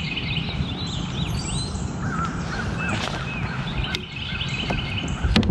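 Birds chirping in repeated short calls over a steady low rumble, with a sharp knock near the end.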